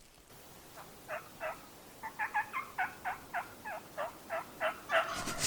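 Hen turkey yelps on a mouth call: a run of about a dozen short two-part notes, a few a second, growing louder toward the end, calling a tom in.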